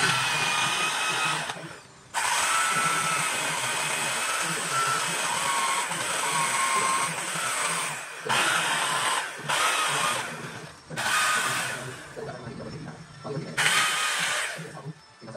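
Handheld power carving tool cutting into rosewood. It runs in stretches of a few seconds broken by short pauses, with a motor whine that shifts a little in pitch.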